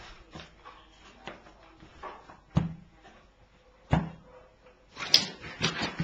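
A few single sharp thumps, one about two and a half seconds in and another about four seconds in, then a quick cluster of knocks and clicks near the end. These are the knocks and stomps of a lively chase game with a small terrier on a carpeted floor.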